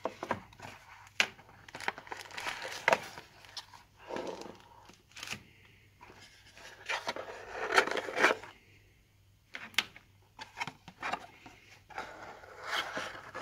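Cardboard box and its inner cardboard tray being handled: cardboard sliding and scraping, plastic bag crinkling, with scattered light taps and clicks. The loudest rustling comes about eight seconds in, followed by a brief quiet spell.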